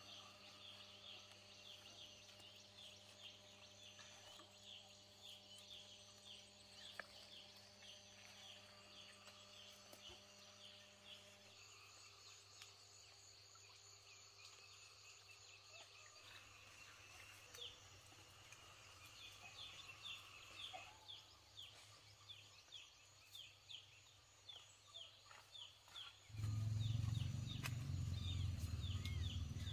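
Poultry calling in a long run of short, high, falling peeps, about three a second, over a faint steady hum. About 26 seconds in, a loud low rumble starts abruptly.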